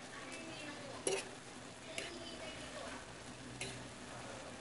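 Instant pancit canton noodles sizzling in a frying pan over high heat while being tossed with a fork. The fork knocks against the pan three times, the first about a second in being the loudest.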